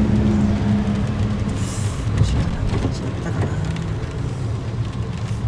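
Road noise inside a moving car on a wet road: a steady low rumble of engine and tyres, with a brief hiss a little under two seconds in.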